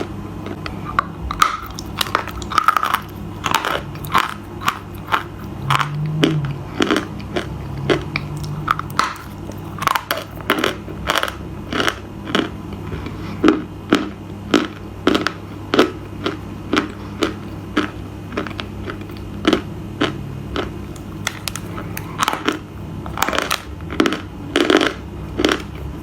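Close-up crunching as something hard and brittle is bitten and chewed, with sharp crunches about one to two a second over a steady low hum.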